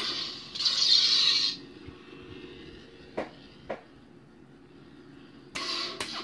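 Lightsaber sound font playing from a Nano Biscotti v3 saber board through a 2-watt bass speaker: a steady low hum, with swing sounds as the blade is waved, a strong one about a second in and another near the end. Two short clicks fall in the quieter middle.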